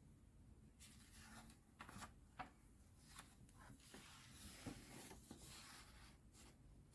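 Faint scratching of a pen writing on paper, in short irregular strokes with a few light taps, starting about a second in.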